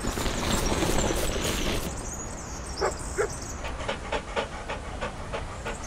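Dog panting sound effect: quick short breaths that settle into an even rhythm of about four a second in the second half.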